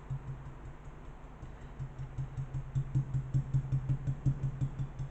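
Paintbrush dabbing paint onto a hollow jug: a quick run of soft taps, about five a second, starting a second or so in and growing louder.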